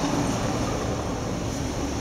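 Steady rumbling background noise at an even level, with no distinct events.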